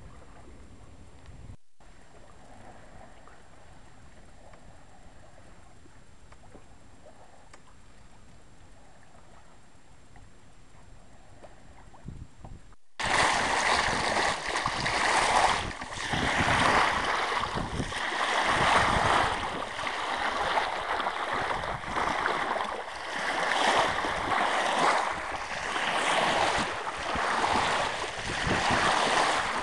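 Water rushing and splashing along the hull of a 1964 Mercator Offshore 30 sailboat under sail, its bow wave swelling and dipping every second or two. Before this, about halfway through, there is only a faint steady hiss of wind and water, then it cuts suddenly to the loud rush.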